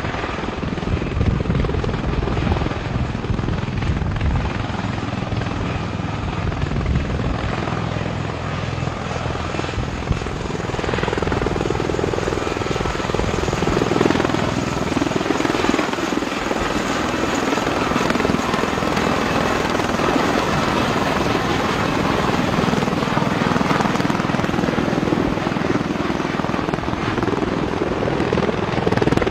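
V-22 Osprey tiltrotor's twin turboshaft engines and proprotors running, a steady heavy drone of rotor and engine noise. It grows a little louder about a third of the way in, with a wavering tone in the middle range.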